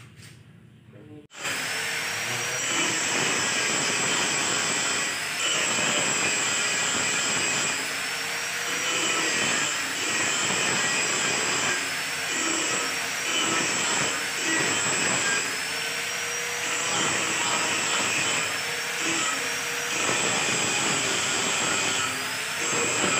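A loud, steady machine noise with a high whine that starts abruptly about a second in and swells and eases every three to four seconds.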